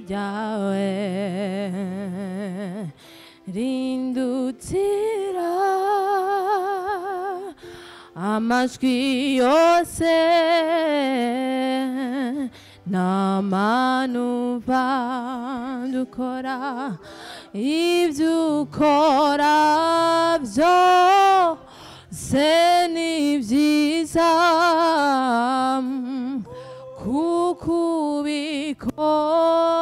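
A single voice singing a slow melody in long held notes with wide vibrato, with little or no accompaniment beneath it.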